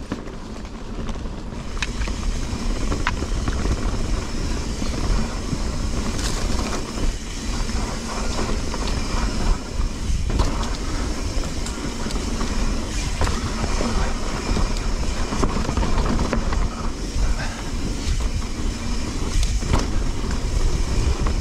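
Mountain bike riding fast down a dirt trail, heard from an on-board action camera: a continuous rumble of tyres and wind on the microphone, with scattered knocks and rattles from the bike over bumps.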